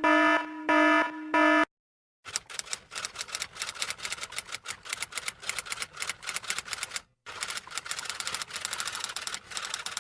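A pitched tone sounds in three short pulses, then after a brief pause comes a long run of rapid, dense clicking like fast typing on a typewriter, briefly stopping about seven seconds in before carrying on.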